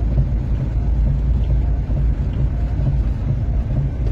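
Steady low rumble of a car driving slowly on slushy, snow-covered road, heard from inside the cabin: engine and tyre noise.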